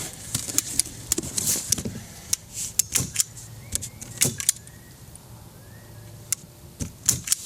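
A hand staple gun snapping, squeezed about a dozen times in uneven succession until it runs out of staples.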